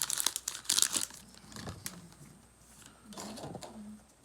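Foil Pokémon booster pack wrapper crinkling and tearing open, with dense crackles in about the first second, then fainter handling.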